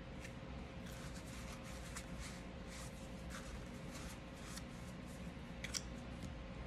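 Microfiber towel rubbing and wiping the polymer frame of a Smith & Wesson M&P Shield Plus pistol, in a run of short scratchy strokes. A sharp click of the frame comes near the end.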